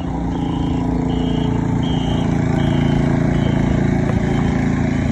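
Motorboat engine running steadily at speed, swelling slightly midway, with a short high-pitched tone repeating about every 0.7 seconds over it.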